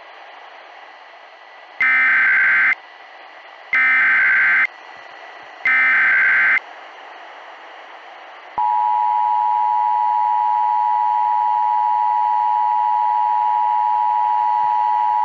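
Emergency Alert System broadcast tones over a steady radio hiss: three identical buzzing bursts of SAME header data, each about a second long and two seconds apart. About eight seconds in, the steady two-tone EAS attention signal begins and holds through the end. This sequence announces a new alert, here a severe thunderstorm warning.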